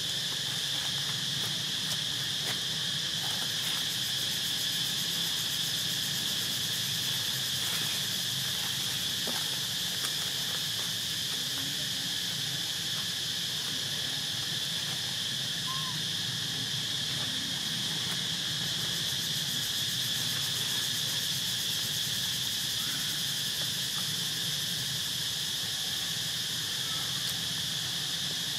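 Steady, high-pitched insect chorus that goes on without a break, with a low steady hum beneath it.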